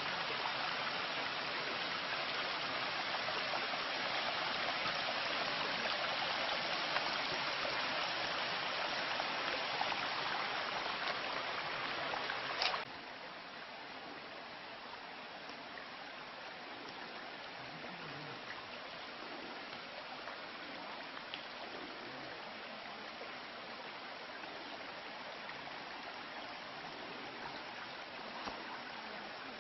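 Mountain stream rushing over rocks, a steady wash of water. It is louder for the first dozen seconds, then after a short click drops abruptly to a quieter, steady flow.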